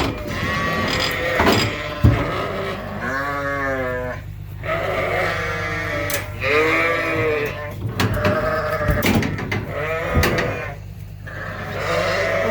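Ewes bleating again and again, loud overlapping calls with a wavering quaver. The mothers are upset at being separated from their lambs. A steady low hum runs underneath.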